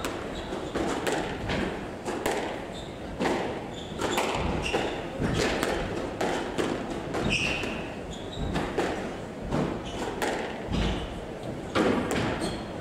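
Squash rally: the ball struck by racquets and hitting the walls in a run of sharp, irregular thuds and cracks, with a few short shoe squeaks on the wooden court floor.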